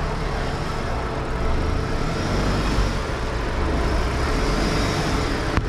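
Mahindra Thar 4x4 driving off-road: a steady engine and road rumble, heavy in the lows, with one sharp knock near the end.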